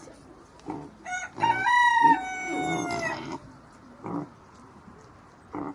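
A rooster crowing once: a long call of about two seconds that rises and then falls away. A few short, low animal calls come before and after it.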